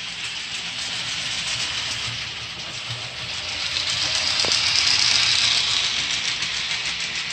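Model streamlined steam locomotive and passenger cars running along the layout track: a steady hiss with a low hum that grows louder around the middle as the train passes close, then eases off.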